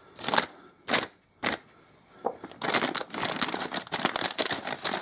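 A plastic parts bag being handled and crinkled: a few separate crackles in the first second and a half, then steady rustling and crinkling from a little past halfway.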